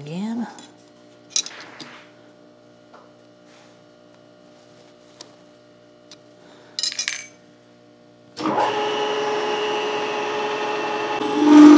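A few small metal clicks and taps as tooling in a vertical milling machine's spindle is adjusted by hand. At about eight and a half seconds the mill's motor starts and runs steadily, getting louder just before the end.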